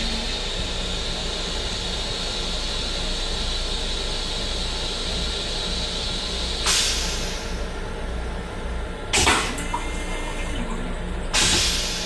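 Long Island Rail Road M7 railcar toilet running a flush cycle: a steady hiss for the first several seconds, then three short, sharp hissing bursts about seven, nine and eleven seconds in.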